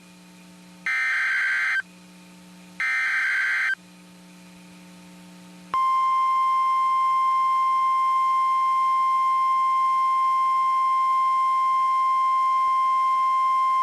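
Emergency Alert System SAME header data: two harsh, buzzy data bursts about a second long, a second apart. About six seconds in, the steady single-pitch 1050 Hz NOAA Weather Radio warning alarm tone begins; it signals that a warning, here a tornado warning, follows.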